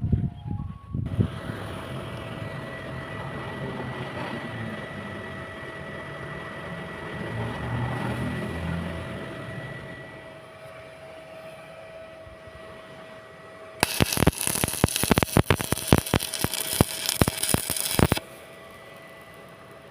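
Stick-welding arc crackling and spitting for about four seconds in the second half, starting and stopping abruptly as the arc is struck and broken. Before it there is a steady hum with a low rumble that swells and fades away.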